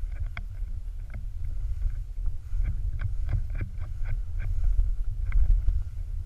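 Low, steady wind-and-motion rumble on a pole-mounted camera carried while skiing through powder, with irregular sharp clicks and ticks that come thickest in the middle.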